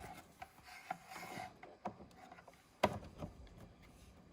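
Light handling noise of a power cable and connector being fitted: soft rubbing and small clicks, with one sharper click about three seconds in.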